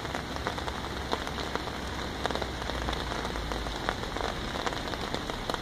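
Steady rain falling, a dense scatter of small drop ticks over an even hiss.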